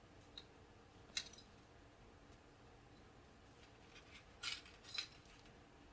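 Faint, sharp clicks of seed beads and thin beading wire being handled as beads are fed onto the wire: one clear click about a second in, and two more about half a second apart near the end.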